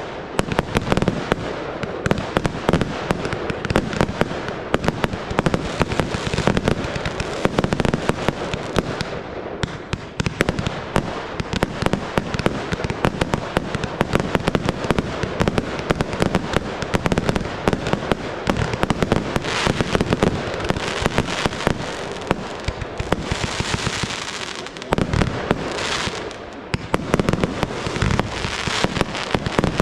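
Professional fireworks display: a dense, unbroken barrage of launches and shell bursts, many bangs a second, with a short stretch of high hiss late on.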